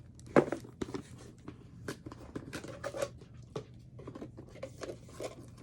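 Irregular small clicks and rustles of close handling, with a sharper click about half a second in.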